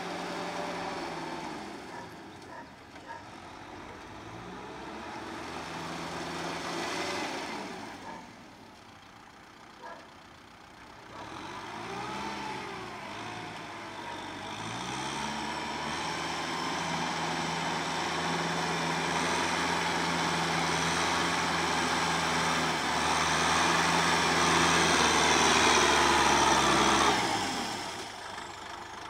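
Kubota M6040SU tractor's diesel engine running under load as it pulls a Maschio rotary tiller through wet paddy mud. The engine grows louder as the tractor comes closer, with its pitch rising and falling a few times about halfway through, and it fades quickly shortly before the end.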